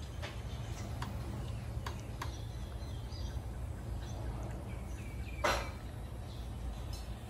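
Outdoor background sound: a steady low rumble with faint bird chirps and scattered small clicks, and one sharp knock about five and a half seconds in.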